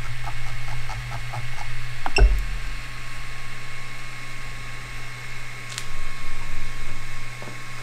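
Voxelab Aquila 3D printer humming steadily from its running fans and electronics, with a run of soft clicks about three a second in the first two seconds as its control knob is turned to raise the Z-axis. A single dull thump comes just after two seconds, and one sharp click later on.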